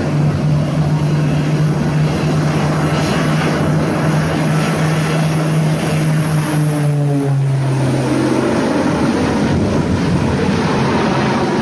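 Propeller aircraft engine running loud and steady, its drone stepping down in pitch about seven seconds in.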